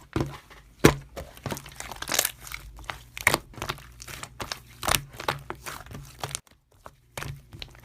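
Slime being squeezed and pressed by hand, giving irregular crackling clicks and pops with a short pause about two-thirds of the way through.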